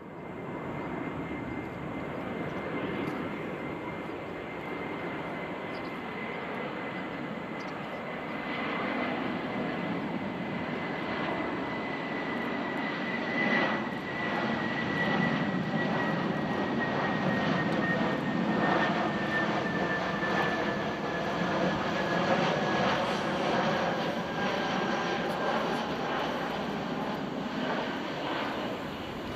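Airbus A320-200 airliner's jet engines on final approach: a steady rumble that grows louder about a third of the way in, with a high whine that slowly drops in pitch as the aircraft nears and passes.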